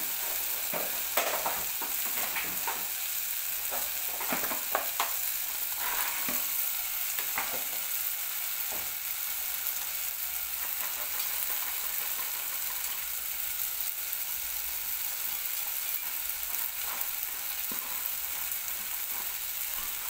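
Tomatoes sizzling in a pot on a gas flame, a steady hiss. Over it come clicks and rattles of crunchy fried omena, small dried silver cyprinid fish, being tipped in from a plastic tub, mostly in the first eight seconds.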